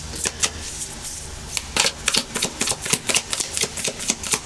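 A tarot deck being shuffled by hand: a rapid, irregular patter of card clicks and snaps, sparse at first and quickening from about two seconds in.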